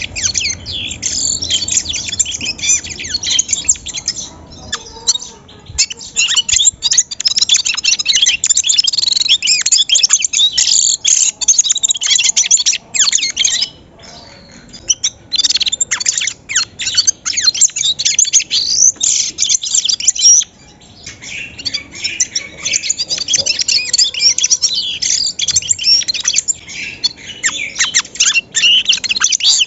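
Several bramblings chirping and singing together in a loud, dense chatter of high calls, broken by a few short pauses.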